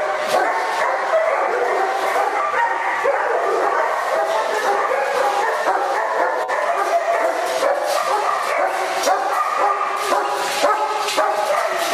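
Several German Shepherds in kennel cages barking and yipping without a break, many voices overlapping.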